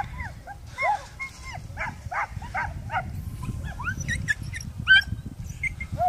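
A pack of beagles baying, many short arched yelps from several dogs overlapping, over a low rumble.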